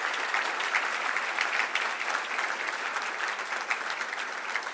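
Audience applauding: many hands clapping together in a steady patter that thins slightly near the end.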